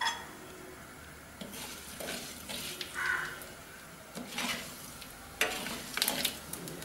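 A perforated metal ladle stirs and scrapes in a clay pot of hot sesame oil, where mustard, cumin and fenugreek seeds are sizzling for a tempering. There are a few sharp clicks near the end.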